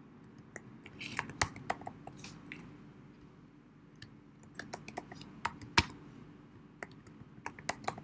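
Computer keyboard typing in two short irregular runs of key clicks, with one louder keystroke near the middle.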